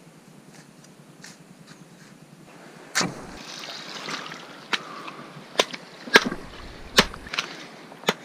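A knife cutting and scraping a fish over a bucket: from about three seconds in, a run of sharp clicks and cracks, about one a second, with scraping in between.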